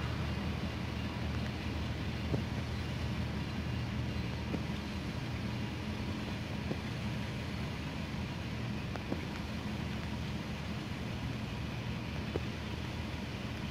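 Steady low rumble of a car driving, heard from inside the cabin, with a few faint ticks every couple of seconds.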